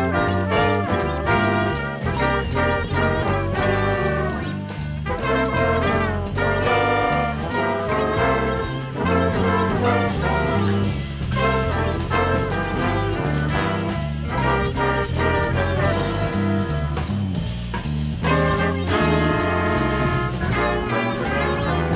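Jazz ensemble music led by a brass section of trumpets and trombones over a moving bass line, with dense chords that keep shifting.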